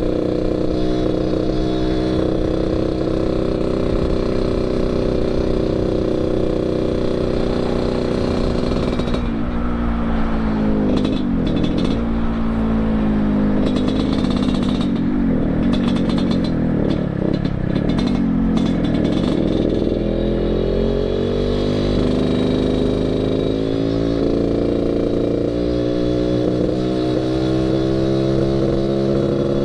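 Yamaha RX-King 135's two-stroke single-cylinder engine running under way through an aftermarket under-belly 'kolong' expansion exhaust set up for the raspy 'ngorok' note. The pitch holds steady, swings down and up several times through the middle as the throttle is worked, then steadies and slowly climbs near the end.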